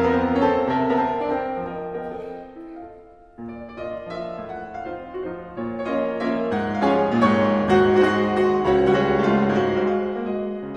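Background piano music, with a brief lull about three seconds in before the notes pick up again.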